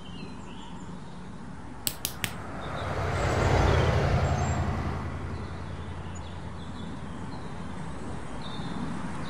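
Three quick sharp clicks, then a rush of noise with a low rumble that swells and fades away, leaving a steady low hum.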